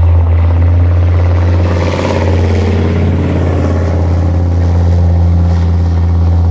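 Leopard 1 tracked armoured vehicle's 10-cylinder MTU diesel running hard as it drives past through deep mud, a steady deep drone that swells louder with added clatter about two seconds in as it passes closest.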